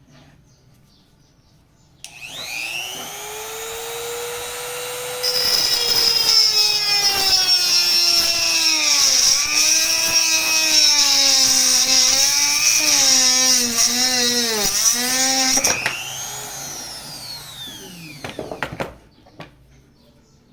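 Electric rotary tool spinning up with a high whine, its pitch dipping again and again as the small saw blade bites into PVC pipe, then spinning down.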